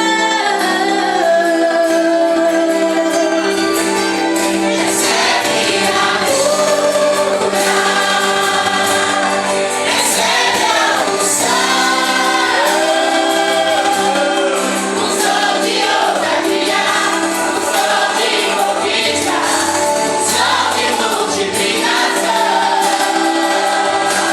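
Gospel worship song: a choir of voices singing over steady held chords.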